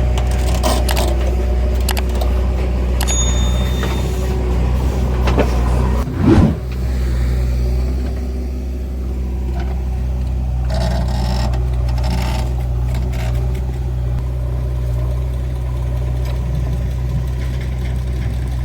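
Heavy diesel engine running steadily at a low, even note, with a brief swell and fall in pitch about six seconds in.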